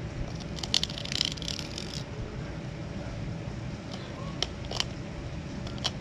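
Knife blade scraping and ticking along a lingcod's backbone and rib bones as it is filleted: a cluster of raspy scrapes about a second in, then a few single sharp ticks later. It is the sound of the blade riding right against the bones, which is what you want to hear when filleting.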